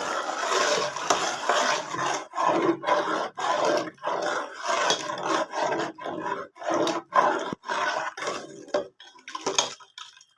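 A pot of kadhi being stirred, the utensil scraping and knocking against the pot at about two strokes a second. The stirring dies away near the end.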